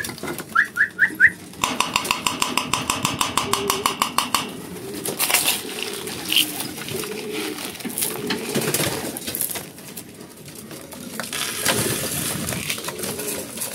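Racing pigeons cooing in their loft. About half a second in come a few short rising chirps, then for about three seconds a fast rattling run of high notes, roughly nine a second.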